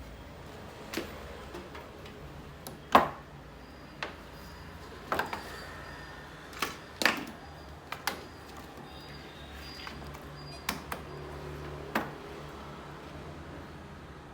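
Irregular clicks and knocks from tools and parts being handled on a workbench, about a dozen, the loudest about three seconds in, over a steady low hum.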